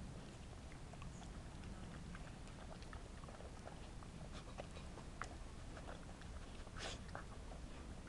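Small dogs chewing and crunching birdseed, nosing through the seeds on a mixing desk: soft scattered crunches and clicks, with one louder crackle near the end.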